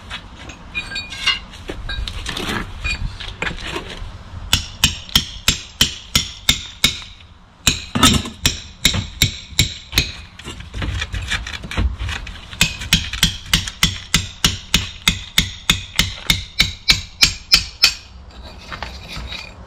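Hammer blows on a stone wall panel being demolished. They come in quick runs of about three strikes a second, with short pauses and some scraping between the runs.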